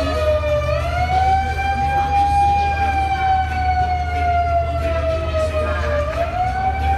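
A siren wailing in one unbroken tone that sinks slowly in pitch, swings back up about a second in, sinks again and rises once more near the end, over a steady low rumble.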